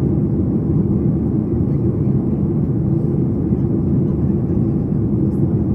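Steady low rumble inside the cabin of a Boeing 737 MAX 8 in descent: the CFM LEAP-1B turbofans and the airflow over the fuselage, heard through the cabin wall as an even, deep drone.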